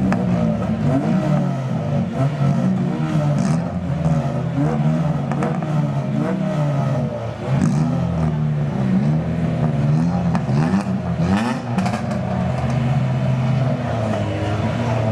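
Several race car engines idling and revving, their pitch rising and falling over a steady low drone.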